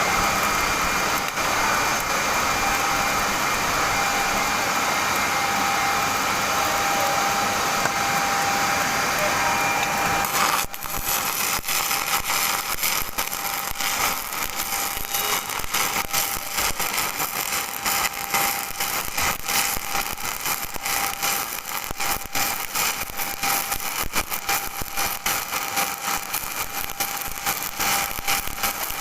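Electric welding arc: a steady hiss with a thin held whine for about ten seconds, then an abrupt switch to a dense, irregular crackle like frying, the typical sound of stick (arc) welding.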